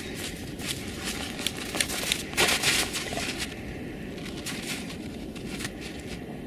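Dogs digging in snowy ground: repeated scraping and crunching of paws in snow and dirt, loudest about two and a half seconds in.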